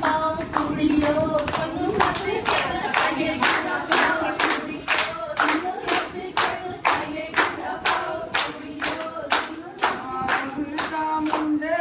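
Voices singing together to a steady beat of hand claps, about two claps a second.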